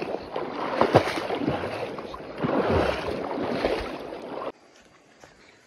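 Water splashing and sloshing as someone wades through a river, in irregular splashes. It cuts off abruptly about four and a half seconds in, leaving only a faint background.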